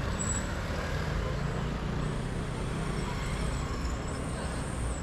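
City street traffic: a large road vehicle's engine running close by as a steady low rumble. A thin high squeal comes and goes through the second half.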